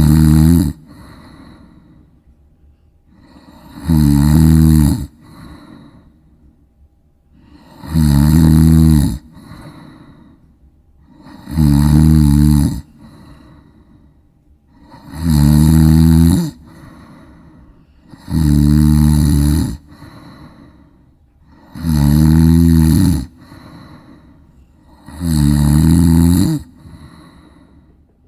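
Golden retriever snoring in its sleep: a loud, pitched snore about a second long every three to four seconds, each followed by a softer breath.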